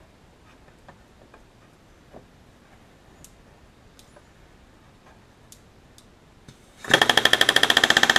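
A few faint clicks and taps, then about seven seconds in a pneumatic rivet gun fires a loud, rapid burst of hammering, bucking a rivet.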